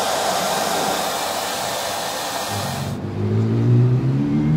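Loud, steady rush of blown air, like a hair dryer or blower fanning the barbecue's red-hot charcoal, cutting off abruptly about three seconds in. A low humming drone with a few steady tones follows.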